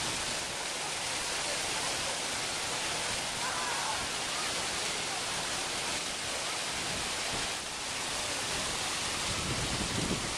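Water cascading over rocks in a small waterfall, a steady close rush of white water.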